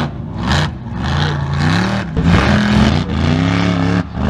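Mega truck's engine revving hard, its pitch climbing and falling several times as the throttle is worked, with a short drop in revs near the end.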